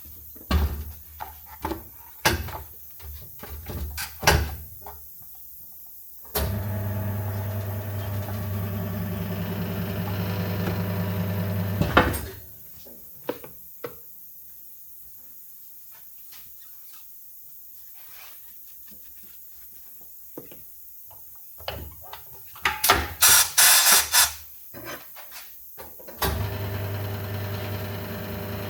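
Workshop work sounds: scattered knocks and clicks, a steady machine hum that runs for about six seconds and starts again near the end, and a quick cluster of sharp loud rattling bursts a little past the middle.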